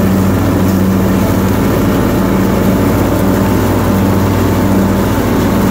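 Lawn mower engine running steadily while cutting grass.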